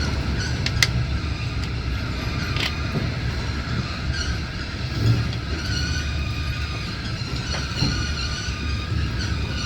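Passenger train running, heard from inside the carriage: a steady rumble of wheels on the rails, with a few sharp clicks and two heavier knocks from the track, about five and eight seconds in.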